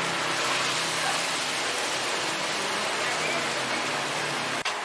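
Food frying in a wok, a steady sizzling hiss like rain, with kitchen voices under it; the sound changes abruptly just before the end.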